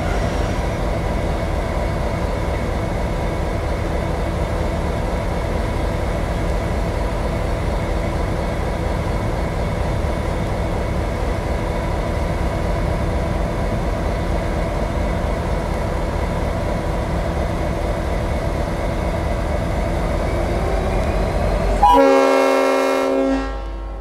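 Diesel-electric locomotive's 12-cylinder EMD 645 engine idling with a steady drone. About 22 seconds in comes one short blast of its Leslie RS5T five-chime air horn, the loudest sound, lasting about a second and a half.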